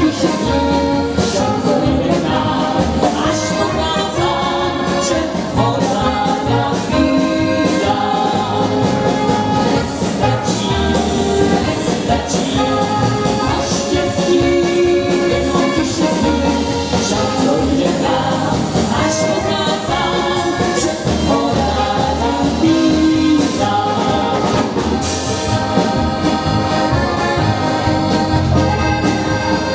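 Live dance band playing a Czech folk song: saxophones, accordion and drum kit, with singing.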